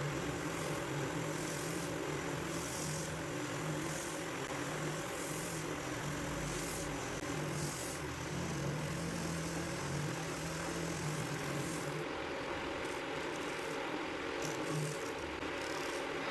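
Homemade drum sander running steadily on its electric motor. A high hiss comes and goes every second or so, and the low hum drops out about twelve seconds in.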